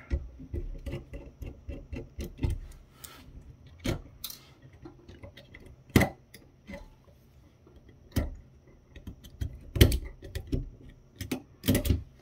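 Irregular clicks and taps of small plastic and circuit-board parts as a digital camera's circuit board is worked loose and lifted off its plastic chassis. There are sharper knocks about six seconds in and around ten and twelve seconds.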